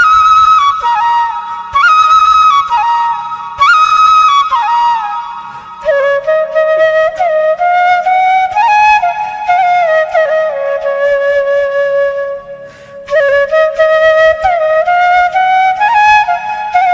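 Flute music: a single flute playing a slow melody of held and sliding notes. The melody steps down in pitch over the first several seconds, then moves in a lower range, with a short pause about three-quarters of the way through.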